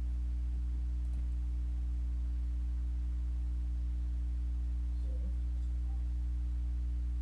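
Steady low electrical hum made of several constant low tones stacked together, unchanging throughout.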